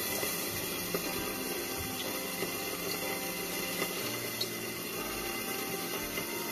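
Hot oil sizzling steadily in a kadai as a tempering of dried red chilli, bay leaf and cumin fries, with a few light ticks.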